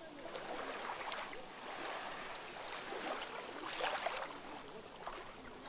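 Small sea waves lapping and washing in on the shore, a fizzing hiss that swells and falls back in irregular surges a second or two apart.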